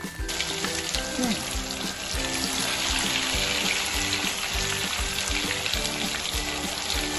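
Marinated rohu fish pieces deep-frying in hot oil, a steady sizzle that starts abruptly just after the beginning. Background music with a steady beat plays underneath.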